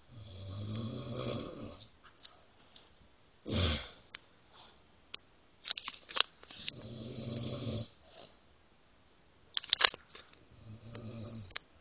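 A man snoring: three long snores, each one to two seconds, coming about every five seconds. Between them come a short loud burst of sound about three and a half seconds in and a few sharp clicks.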